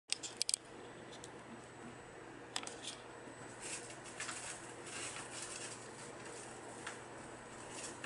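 Brown-headed parrots scratching and clicking with their beaks and claws on rope perches and toys: a few sharp clicks near the start, then scattered light scratching and rustling.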